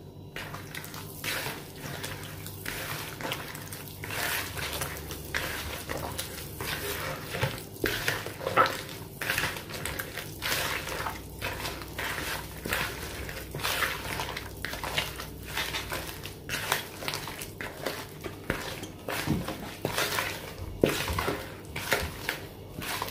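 A hand squishing and working soft butter, sugar and eggs together in a bowl for sablé dough: a long run of irregular squelching strokes, about one or two a second.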